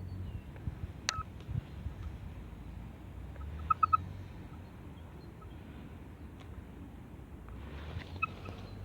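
Metal detector giving short electronic beeps as its ground balance knob is touched: spurious sounds from the ground balance control. A click about a second in, a quick run of three beeps near four seconds, and two more near the end.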